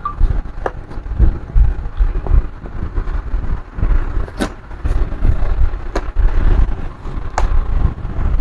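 A loud, uneven low rumble with about six sharp clicks and taps as laptop case parts are handled during a hinge repair.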